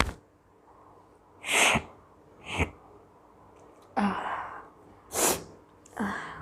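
A woman sneezing, about five sneezes in a row roughly a second apart, set off by tickling her nose for a sneezing challenge. A brief sharp click at the very start.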